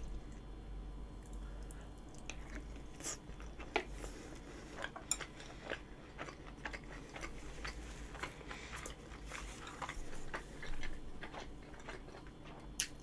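Close-up chewing and mouth sounds of a person eating a mouthful of beef curry rice: scattered soft smacks and small clicks.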